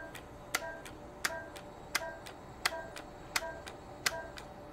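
INTRAcel radio-frequency microneedling handpiece firing pulse after pulse into the skin, a sharp click with a short beep on each shot, about one shot every 0.7 seconds.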